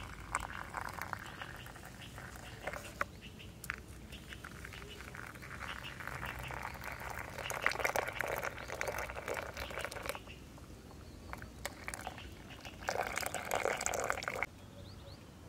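Hot water pouring from a kettle into paper cups, in three runs, the last one stopping suddenly near the end.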